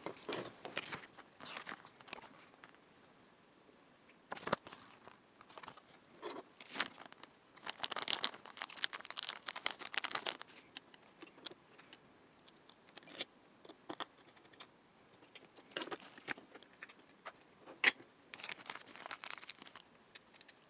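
An M.2 NVMe SSD and a small metal enclosure being handled: scattered clicks and taps with short stretches of light scraping as the drive is seated in its slot and a small screw is fastened.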